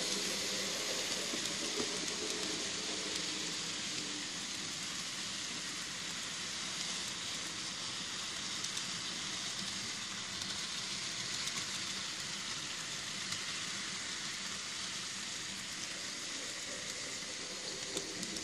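N scale model passenger cars rolling along the track, a steady fine hiss from the small metal wheels on the rails with a few faint clicks, fading slightly as the train moves away.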